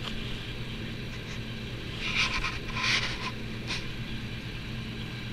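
Handling noise from a plush toy's fur and fingers rubbing close to the microphone: a few short scratchy rustles, about two, three and three and a half seconds in, over a steady low hum.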